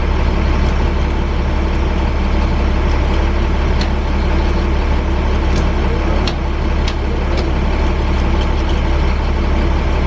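School bus engine running, heard from the driver's seat: a loud, steady low drone with an even noisy hum above it and a few faint clicks.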